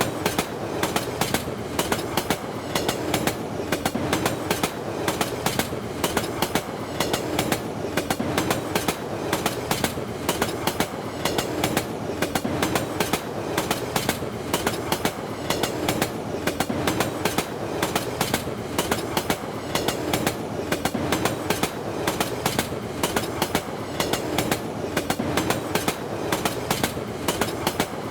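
Indian passenger train running along the track: a continuous rumble with wheels clicking rapidly and steadily over the rail joints in a clickety-clack rhythm.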